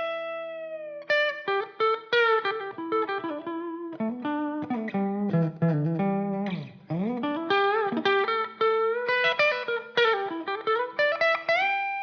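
Donner Hush X travel electric guitar played through the Donner Arena 2000 amp modeler on a clean patch, bridge humbucker with the tone rolled back a little. It plays a single-note melodic line with bends and slides. A sustained note rings out at the start and another near the end.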